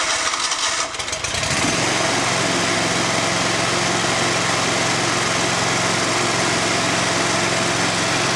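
Kawasaki V-twin riding-mower engine being started: it cranks and catches in the first second and a half, then runs steadily at a constant speed.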